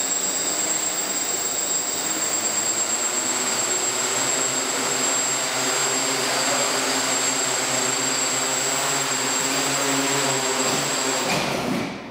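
Hexcopter drone's six electric motors and propellers running steadily, a rushing propeller noise with a thin high whine over it. The noise drops away sharply near the end as the motors stop.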